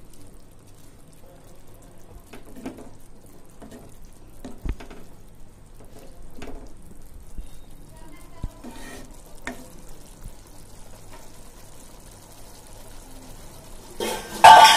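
Fish curry simmering in a nonstick pan, with a wooden spatula scraping and stirring through the gravy now and then. A short, loud ringing chime sounds near the end.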